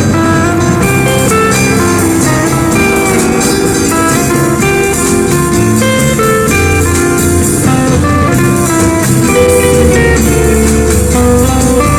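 Background music: a guitar-led instrumental with a moving bass line and a steady beat.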